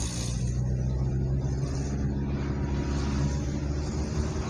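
A car driving on a city street, its engine running with a steady low hum under an even wash of road noise.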